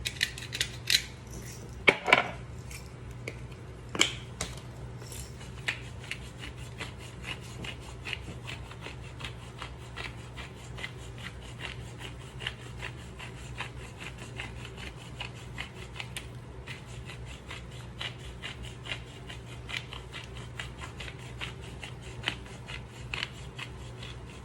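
Salt and pepper grinders being turned over a pan: a long, fast run of small grinding clicks, with a couple of louder knocks about two and four seconds in, over a steady low hum.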